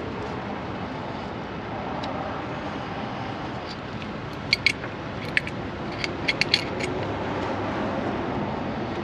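About eight sharp metallic clicks and taps, bunched irregularly over a couple of seconds near the middle, from a hand tool working a clamp on a truck's air intake hose. A steady background noise runs under them.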